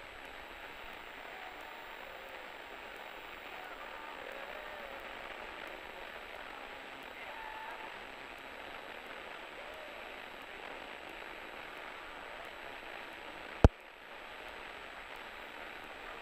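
Steady hiss of a light training plane's cockpit intercom and radio audio between transmissions, with the engine and propeller barely heard. One sharp click comes about thirteen and a half seconds in.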